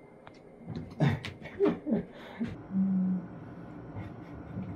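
A cat's claws scratching and clicking on a sisal scratching post as it clings and climbs, in a short cluster about a second in. There are a few brief voice sounds and a short held hum-like tone a little later.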